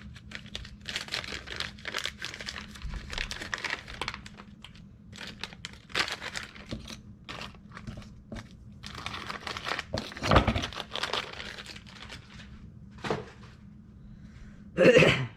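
Plastic parts packaging crinkling and rustling, with small clicks and rattles of loose spare parts being handled and put away; a louder knock about ten seconds in.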